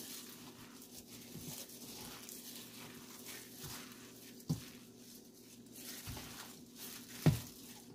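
A plastic-gloved hand working flour, eggs and minced fish into a dough in a stainless steel bowl: faint rustling and scraping, with two sharp taps, one about four and a half seconds in and a louder one near the end.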